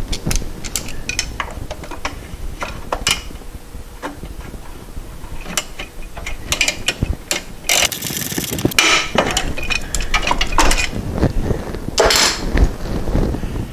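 Metal shift linkage parts of a VW Cabriolet being handled and fitted back together by hand: scattered clicks, clinks and knocks, with a longer rasping burst about eight seconds in.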